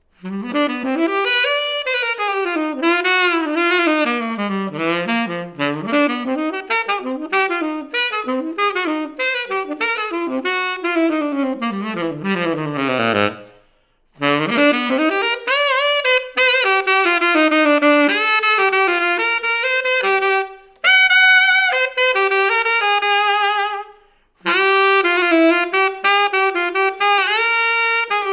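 Chateau CTS-50V tenor saxophone played solo, unaccompanied and without added effects, in fast jazzy runs sweeping up and down the horn. The line breaks off for a breath about halfway and again near the end, with a few longer held notes before the last phrase.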